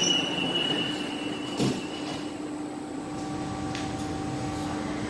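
Sliding doors of a driverless metro train closing and meeting with a single thud about one and a half seconds in, over the train's steady hum; a high steady tone fades out around two seconds in.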